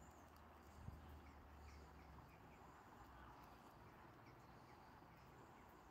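Near silence: faint outdoor ambience of light rain, with a few faint distant bird chirps and a soft click about a second in.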